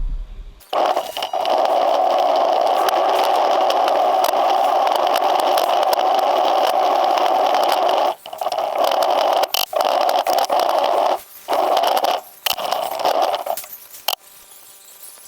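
Steady scraping, rattling mechanical noise from a remote-operated airsoft UGV, cutting out abruptly several times.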